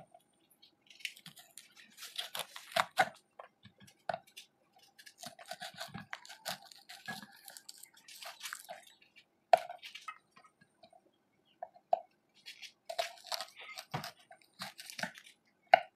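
Small knife slicing fresh green chillies on a wooden cutting board: irregular crisp cuts and light taps of the blade on the board, with one sharper knock a little before ten seconds in.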